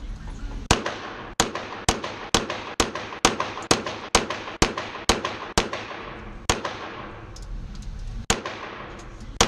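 Handgun shots in quick succession, about two a second for eleven shots, then two slower ones, each ringing out in the echo of an indoor range.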